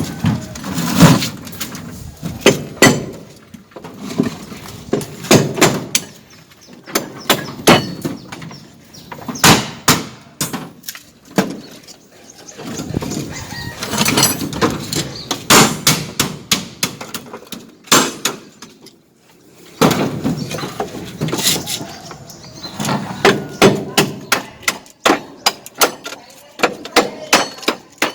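Irregular sharp taps, knocks and scrapes of hand tools working mortar during plastering, in bursts with short pauses.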